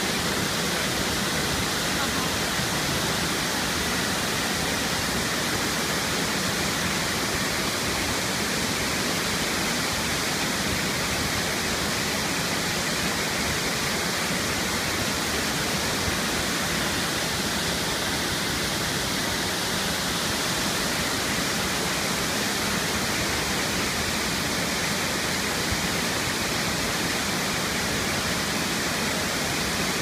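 Large waterfall pouring down stepped rock ledges into a plunge pool: a steady, unbroken rush of water that stays even throughout.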